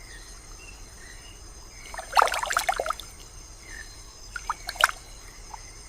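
Water splashing and trickling in short bursts, a cluster about two seconds in and a few more splashes near five seconds, over faint steady high tones.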